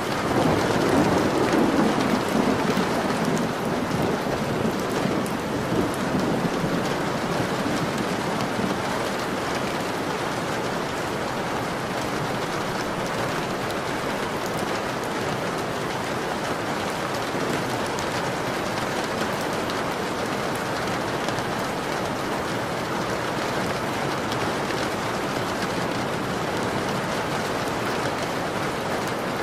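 Steady rain falling, with a low rumble of thunder that swells about a second in and fades away over the next several seconds.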